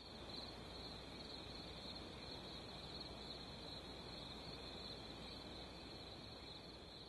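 Faint field ambience: insects chirring steadily at a high pitch, over a low, even outdoor background noise.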